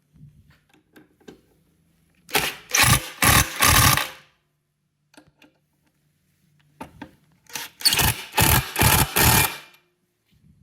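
Cordless impact driver hammering bolts tight into a motorcycle's rear fender and rails, in two sets of about four short rattling bursts.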